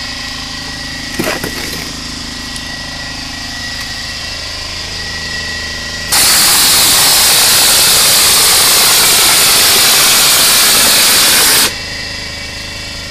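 Stucco hopper gun (scoop-and-shoot) spraying a scratch coat of mortar onto a wall: a loud, even rush of compressed air and material that starts abruptly about six seconds in and cuts off sharply about five and a half seconds later. An air compressor runs steadily underneath, with a steady high whine.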